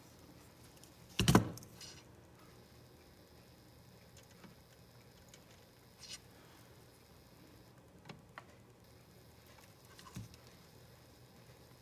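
Bench handling noises during soldering work: one sharp knock about a second in, then a few faint clicks and taps over a low, steady room background.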